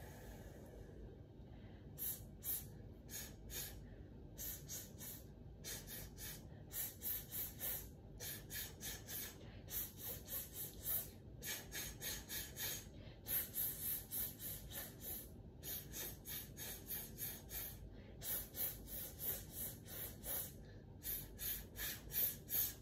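Short, sharp hissing puffs of breath, about four a second, in runs with brief pauses: a vocal breathing exercise.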